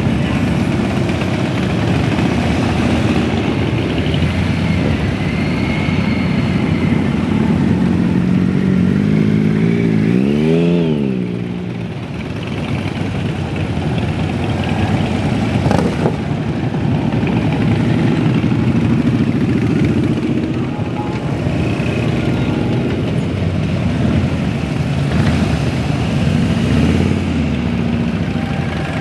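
Motorcycle engines running on a group ride, a steady loud drone with noise like wind over it; about ten seconds in, one engine's pitch rises and then falls.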